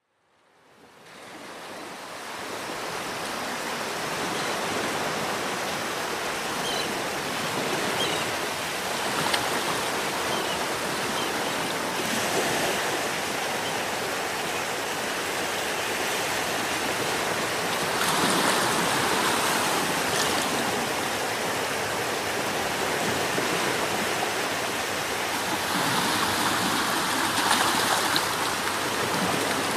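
Sea waves washing onto a beach, a steady hiss of surf that fades in over the first couple of seconds. It swells louder as waves break, once about eighteen seconds in and again near the end.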